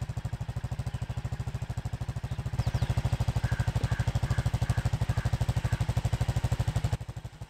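ATV engine running with a steady, even thumping pulse. It gets a little louder about two and a half seconds in and drops back near the end.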